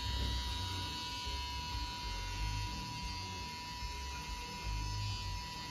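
Small electric motor turning the marble run's spiral screw lift: a steady electric buzz with a constant high whine. Low rumbles come and go underneath.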